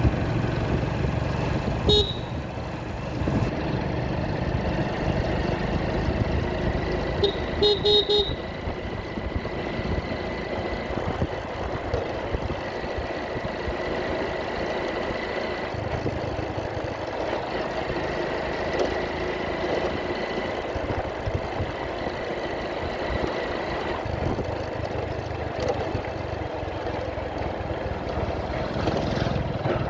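Motorcycle riding through traffic, its engine and road noise running steadily. A short horn toot sounds about two seconds in, and a quick run of horn toots follows about eight seconds in.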